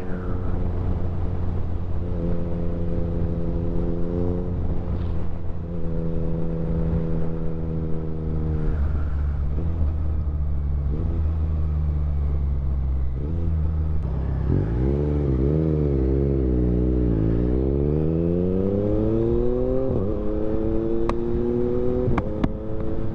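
Motorcycle engine running at steady revs while riding. About two-thirds of the way through the pitch wavers up and down, then climbs steadily as the bike accelerates. A few sharp clicks come near the end.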